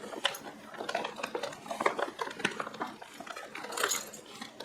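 Metal belt buckles and jewelry pieces clinking and clattering against one another as they are handled and sorted, a run of small irregular clicks, with a brief louder rustle about four seconds in.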